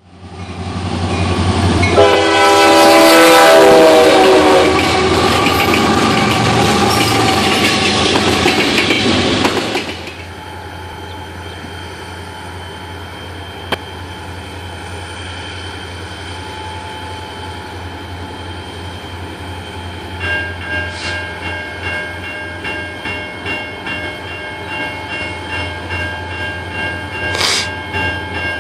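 A loud diesel train horn chord sounds over a heavy rumble, which cuts off abruptly about a third of the way in. Then the low, steady drone of the EMD 645 V16 diesels of a CSX GP40-2 and SD50-2 working hard as they approach, with a bell ringing steadily in the last third.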